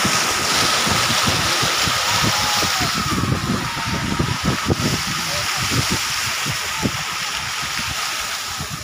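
Car driving through floodwater on the road: a steady rush and hiss of water spraying and splashing around the car, with irregular low thumps.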